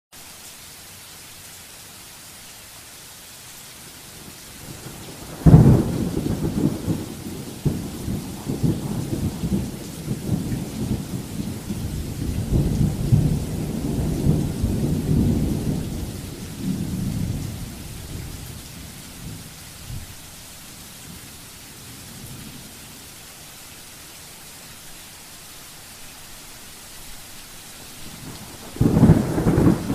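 Thunderstorm: steady rain hissing throughout, with a sharp thunderclap about five seconds in that rolls and rumbles for around twelve seconds before dying away, and a second clap of thunder breaking near the end.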